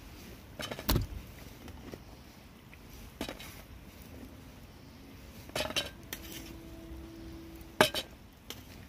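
Metal utensil clinking against a speckled blue enamel plate as fried chicken nuggets are set down on it: four sharp clinks a couple of seconds apart, the last the loudest, one followed by a short ringing tone.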